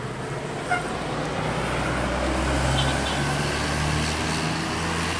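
A heavy road vehicle passes close by, its engine droning low and growing louder from about a second and a half in. A brief horn toot sounds just before that, under a second in.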